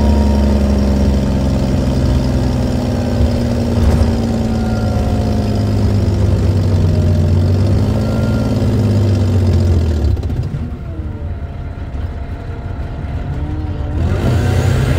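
Detroit Diesel Series 60 straight-six diesel in an MCI D4500CT coach, running loud with a deep steady drone and pitch slowly gliding; its exhaust has a leak. About ten seconds in it drops much quieter for a few seconds, then comes back up to full loudness near the end.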